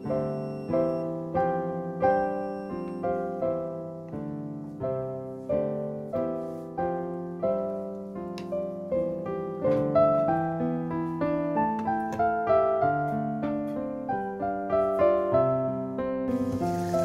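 Background piano music: a gentle melody of struck notes and chords, each note dying away, about two a second. A steady hiss comes in near the end.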